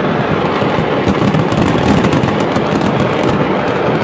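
Large fire burning with a steady roar and dense crackling and popping.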